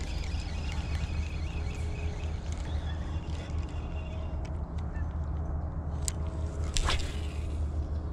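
Wind buffeting the microphone as a low steady rumble, with faint bird calls in the first few seconds. Two sharp clicks come near the end.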